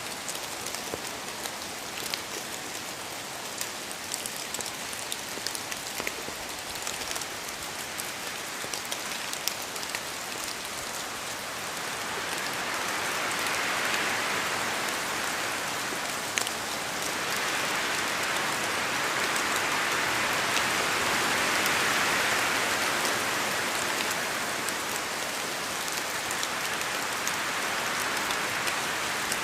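Steady rain falling on a surface, a dense hiss dotted with sharp drop ticks, swelling louder twice in the second half.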